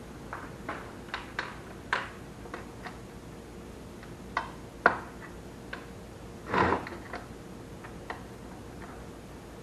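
Irregular light clicks and taps as wires and terminals are handled against a garden tractor's sheet-metal dash panel, with one louder, longer scrape about two-thirds of the way through.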